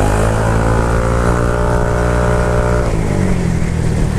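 Honda Airblade scooter's single-cylinder engine blipped through a newly fitted Yoshimura Alpha aftermarket exhaust. The pitch rises over the first second or so and holds, then drops back to idle about three seconds in. This is an exhaust sound check.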